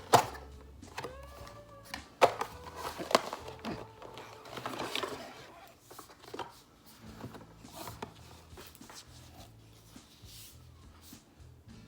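A few sharp knocks and clicks with some rustling, as product containers and packaging are handled and unpacked; the loudest knock comes right at the start.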